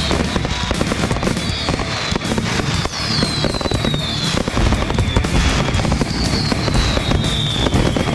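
A 500-gram, 16-shot consumer firework cake firing. Dense crackling and low booms run throughout, with several high whistles that fall in pitch.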